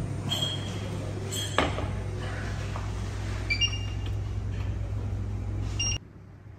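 Short electronic beeps from an induction cooktop's touch controls as they are pressed, several in quick succession, with a metal clink of a steel saucepan about a second and a half in, over a steady low hum.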